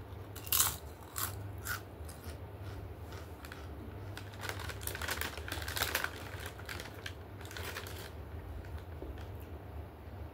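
Biting and crunching a thin piece of white shell stone by mouth: a few sharp snaps in the first two seconds, then a dense run of crunchy chewing in the middle.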